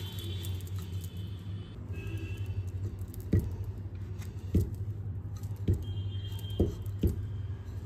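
Wooden rolling pin rolling out chapati dough on a stone rolling board, with about five short dull thumps in the second half as the pin is pressed and set down, over a low steady hum.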